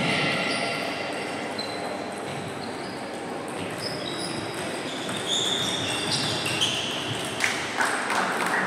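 Table tennis rally: the celluloid ball clicks back and forth off bats and table, amid the background din of a sports hall with other matches in play. Short high squeaks, like shoes on the wooden floor, sound through it.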